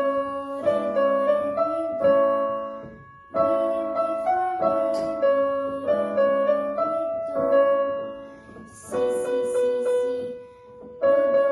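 Digital piano played by a beginner: a simple piece in A major, picked out note by note in short phrases with brief pauses between them.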